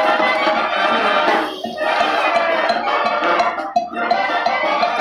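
Festive band music playing for dancing, with sustained horn notes over steady percussion.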